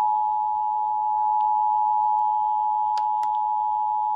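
Emergency Alert System two-tone attention signal (853 Hz and 960 Hz sounded together) coming over an FM radio. It is a steady, unbroken tone that marks the start of an EAS alert being relayed, here the required monthly test.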